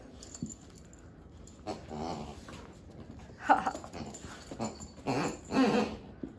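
Dog growling and whining in play, in about three short bursts.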